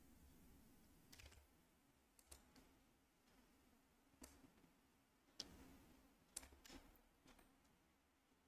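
Near silence with about six faint, scattered clicks of a computer mouse and keyboard in use, the clearest one about halfway through.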